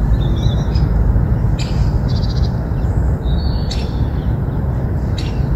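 A few short bird chirps and one quick trill over a steady low rumble.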